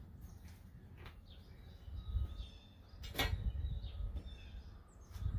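Wind rumbling on the microphone, with one sharp click or knock about three seconds in and faint bird chirps.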